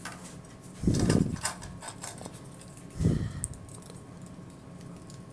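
Small plastic clicks and taps as the parts of an Iron Factory transforming robot figure are handled and its hands pegged on, with two dull thumps, about one and three seconds in.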